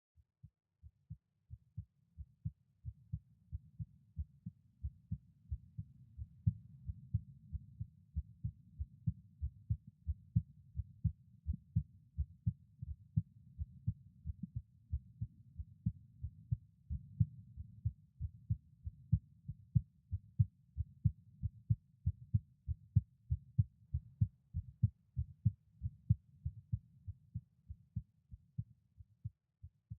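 Resting adult male heartbeat heard through a stethoscope: a slow, steady run of low, dull paired lub-dub thumps, with a faint low rush between beats.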